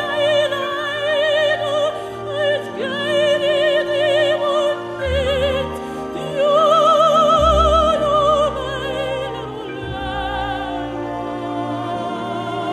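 Operatic singing: a classical voice with wide vibrato holding long notes over instrumental accompaniment.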